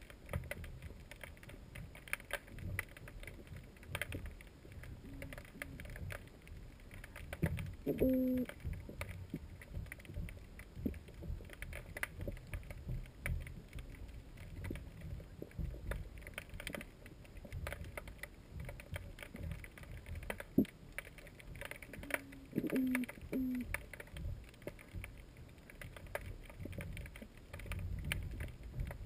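Scattered knocks and clicks over low rumbling, with short low creaking tones twice, about 8 seconds in and again around 22–23 seconds.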